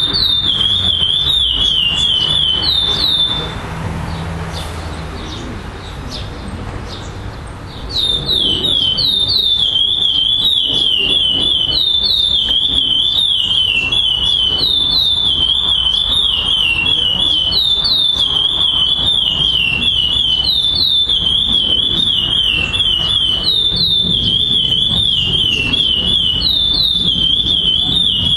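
Male chestnut-bellied seed finch (curió) singing its classic tournament song: quick runs of clear whistled notes, each sliding down in pitch, phrase after phrase. It breaks off for about four seconds near the start, then sings on without pause.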